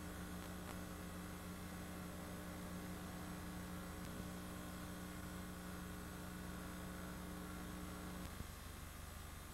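Steady electrical hum over a hiss, with a couple of steady tones over the low buzz that cut off about eight seconds in.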